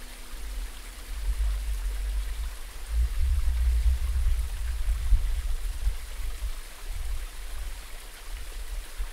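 Stream water cascading over rocks, a steady wash, under a low uneven rumble that swells about three seconds in and eases after about six seconds.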